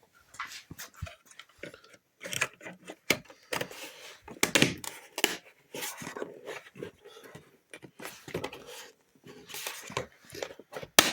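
Plastic side-mirror cover parts being handled and pressed into place by hand: irregular clicks, knocks and rubbing, with a sharp click near the end.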